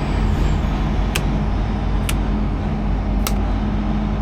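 Load bank running with a steady drone of its cooling fan and an electrical hum. Sharp switch clicks come about once a second, four in all, as the controls on its panel are worked while the load is taken off.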